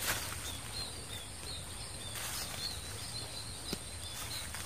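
Quiet outdoor ambience: a small high chirp repeating several times a second over a thin, steady high buzz, with a few brief rustles of someone moving on dry reed litter, the loudest just as it begins and one about two seconds in.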